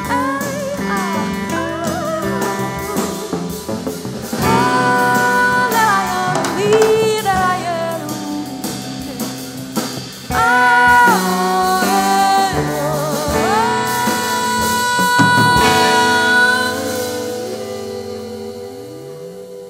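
Live band music: long, wavering sung notes over guitar and a moving bass line, the level easing off near the end.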